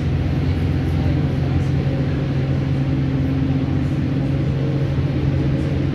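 Steady cabin noise of a moving vehicle: a constant low hum with a steady drone under it, at an even speed.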